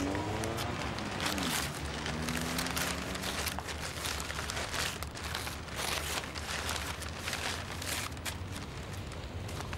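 Paper wrapping around a bouquet of flowers crinkling and tearing as it is handled and unwrapped, a continuous run of rustles and crackles. Under it, a low held tone bends in pitch and fades out about three and a half seconds in.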